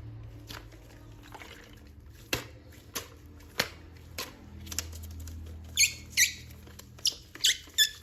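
Scattered sharp clicks, then a quick run of short, high squeaks over the last couple of seconds.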